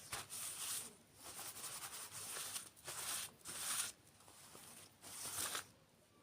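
Close-miked crackly rustling noise in four bursts of about a second each, dying away near the end.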